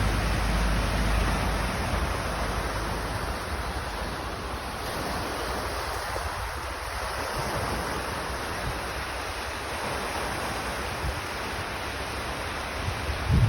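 Steady rushing outdoor noise, heavier and lower in the first couple of seconds, with a short loud low knock right at the end.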